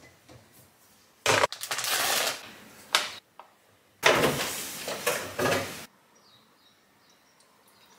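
Dry powder (cream of rice and whey) being poured into a glass bowl on a kitchen scale: two spells of hissing, rustling pour, the first just after a sharp knock about a second in, the second from about four seconds in, with a click between them.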